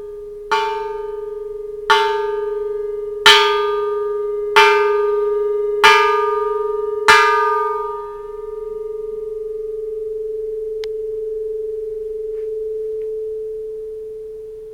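Bronze Japanese Buddhist temple bell struck six times at an even pace, about one strike a second and a half, each strike a bright clang over a deep steady hum. After the last strike the hum rings on for several seconds and slowly fades, an eerie sustained tone. The bell's slight crack does not much spoil the ring.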